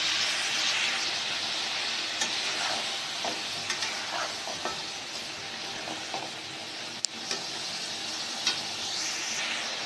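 Chicken pieces and onions sizzling in hot oil in an aluminium kadhai, stirred with a spatula that scrapes and knocks against the pan. There is a sharp clack about seven seconds in.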